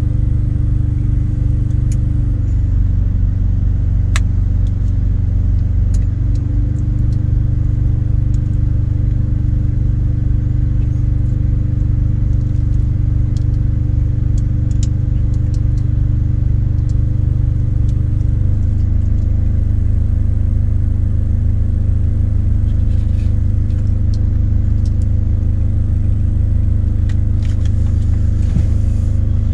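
Diesel engine running steadily, a loud low hum heard inside a semi truck's cab, its pitch stepping a few times, most clearly about two-thirds of the way through. Faint clicks of utensils sound over it.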